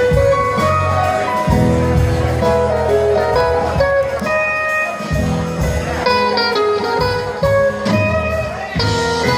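Live band playing an instrumental passage, with acoustic and electric guitars picking melodic lines over low bass notes.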